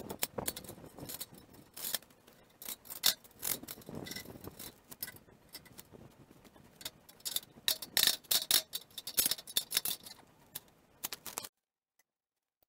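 Irregular metal clinks, knocks and scrapes from handling and fitting the sawmill's aluminium track rails, steel bunks and loose bolts. The sound cuts off suddenly near the end.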